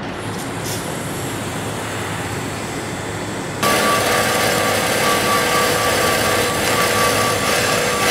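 A steady, even noise, then about three and a half seconds in a louder metalworking tool starts abruptly on the steel tubing: a hiss with a steady high whine that runs on without a break.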